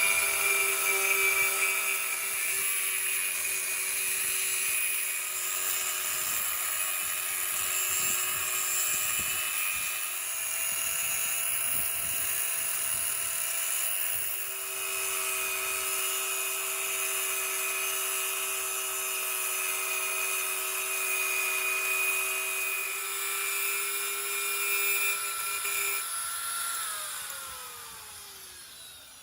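A high-speed electric power tool running steadily with a high whine, then switched off about three seconds before the end and winding down, its pitch falling as it fades.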